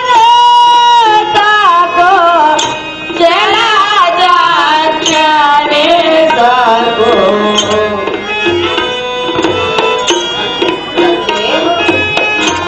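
Singing in an ornamented Carnatic style over tabla beats, the sung verse of a stage drama. A held note opens it, and from about a second in the melody winds up and down.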